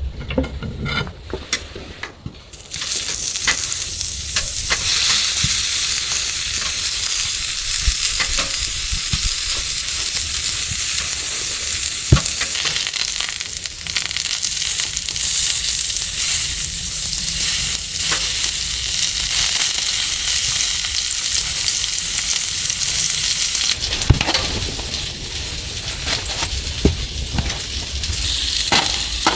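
Food sizzling as it fries in a pan, a steady hiss that starts about two and a half seconds in, with a few sharp clicks.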